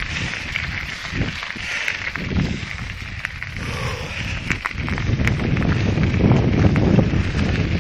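A bicycle rolling along a gravel trail strewn with dry leaves: tyres crunching, with clicks and rattles over the bumps. A low rumble grows louder about five seconds in.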